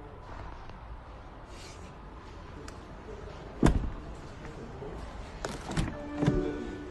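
A sharp knock about halfway through, followed by a few lighter knocks and clicks, heard inside a car's cabin.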